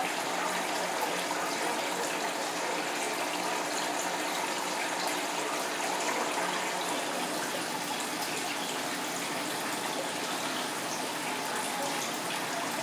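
Aquarium filter water splashing and trickling steadily at the tank's surface.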